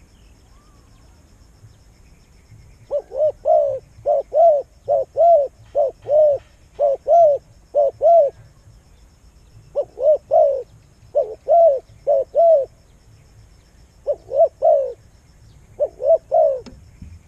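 A bird calling: loud, short arched notes, mostly in pairs or threes, repeated about once a second and starting about three seconds in, with a few short pauses.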